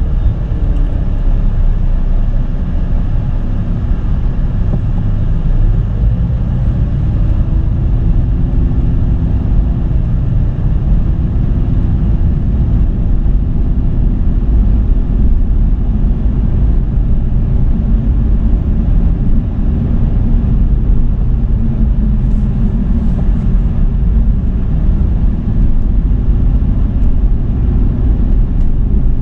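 In-cabin driving noise of a 2007 Dodge Charger in slow city traffic: a steady low rumble of engine and tyres on the road. The engine's note rises and falls a few times in the first several seconds as the car speeds up and eases off.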